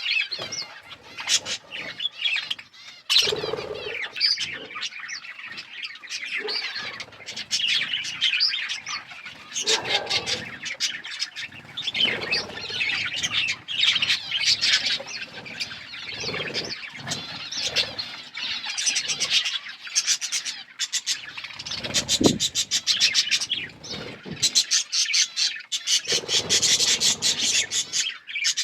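Pet budgies and lovebirds chirping and chattering nonstop, a busy mix of short high chirps with runs of fast clicking at several points.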